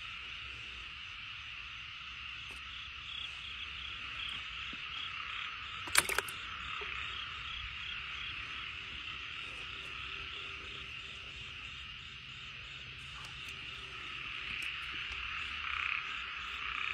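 Many frogs calling at once in a dense, steady chorus, with one sharp click about six seconds in.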